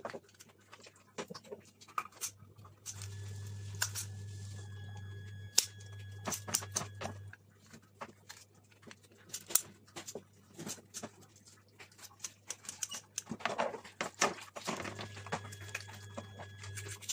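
Irregular wet clicks and taps of kitchen scissors and a knife cutting through a fish's head and gills on a plastic cutting board, with the fish being handled and knocked against the board. A low steady hum comes in twice, for a few seconds near the start and again near the end.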